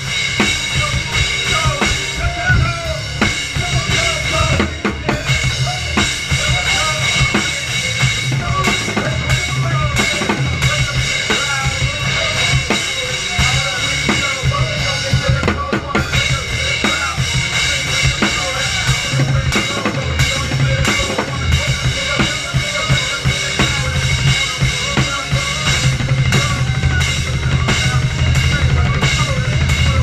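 Acoustic drum kit played hard and continuously: kick drum, snare and cymbals driving a fast beat over a recorded song playing along, with no singing in this stretch.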